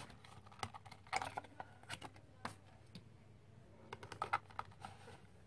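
Hands handling a phone's cardboard retail box and its contents as a phone cover is picked out of it: scattered light clicks, taps and rustles, in small clusters about a second in, around two seconds and around four seconds.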